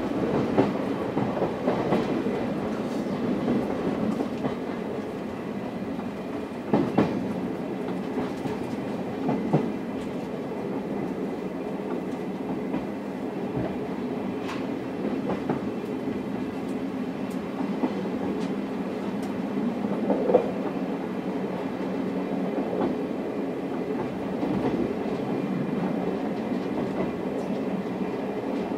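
Running noise inside an old-type SuHaFu 42 passenger coach of a locomotive-hauled train: a steady rumble of wheels on rail, with scattered sharp clicks and knocks from the track and car body, the loudest about 7 s and 20 s in.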